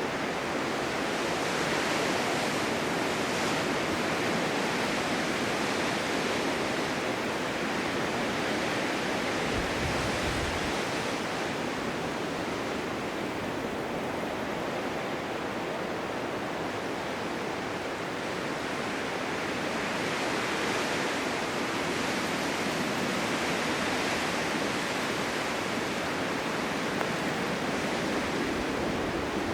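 Blizzard wind blowing: a steady, dense rushing hiss that swells gently a couple of times.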